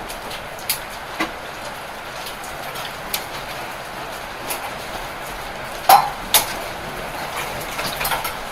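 Hailstones and rain falling on a terrace: a steady hiss of rain with scattered sharp hits and clinks as stones strike hard objects, the two loudest about six seconds in.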